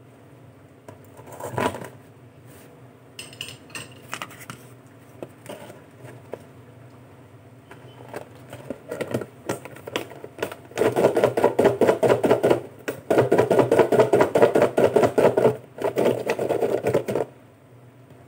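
Raw sweet potato sticks rattling inside a lidded plastic food container as it is shaken hard to coat them, in three bouts of rapid shaking in the second half, the last one shorter. Before that come scattered clicks and knocks of the plastic container being handled.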